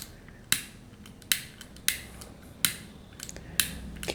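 Piezo igniter of a Zippo single torch butane lighter insert clicking five times with no flame catching, as the lighter has run out of gas.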